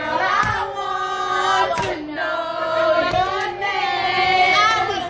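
A group of people singing together, several voices holding long notes.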